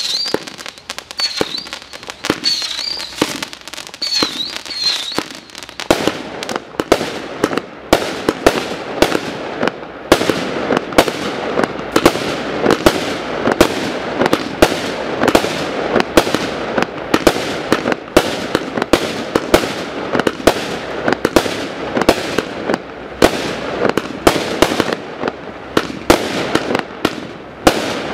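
Zeus Fireworks 'Optimise' firework firing a continuous barrage of shots and aerial bursts, sparser at first and then a rapid, dense volley from about six seconds in.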